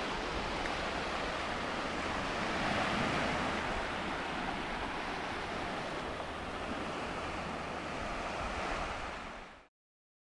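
Small surf breaking and washing over shallow sand: a steady rush of water that fades out near the end.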